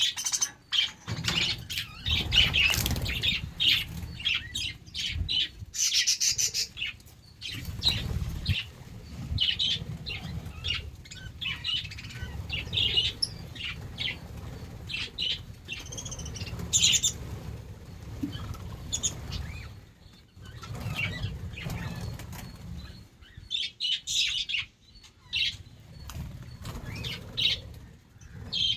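A flock of budgerigars chirping and chattering in quick, overlapping high calls, with several bursts of wing flapping as birds fly about.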